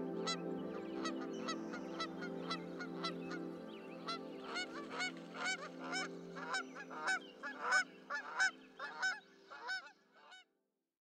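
Geese honking over and over, about two calls a second, getting louder in the second half and stopping suddenly near the end, over a held musical chord that fades away.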